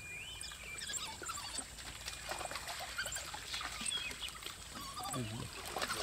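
A pack of African wild dogs twittering: many short, high-pitched chirps and squeaks in an irregular run, with lower calls near the end.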